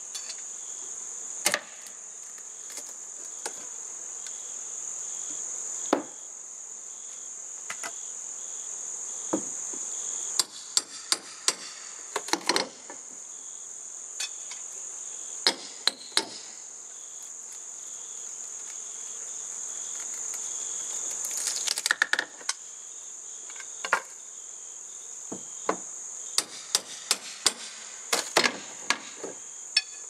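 Hammer blows on the old wooden siding of a house wall as it is opened up, some single and some in quick runs of strikes, over a steady high-pitched insect chorus.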